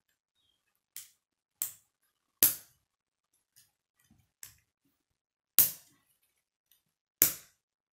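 K'nex plastic connectors snapping onto rods: a handful of sharp plastic clicks, three of them loud, with quiet gaps between.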